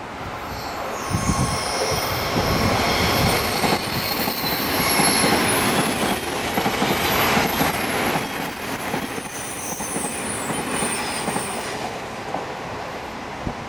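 Odakyu 3000 series ten-car electric train passing close at speed: a loud rumble of wheels on rail, with rhythmic wheel clatter over the rail joints and thin high squealing tones above it. It swells about a second in and eases off toward the end as the cars run past.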